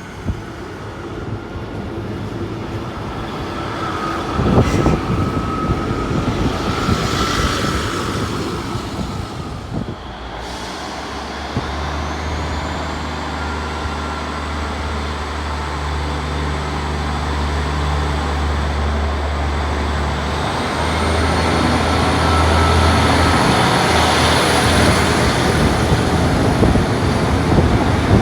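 Sprinter diesel multiple unit running, its underfloor diesel engines giving a steady low drone from about a third of the way in, with a high whine gliding up twice and the overall sound growing louder.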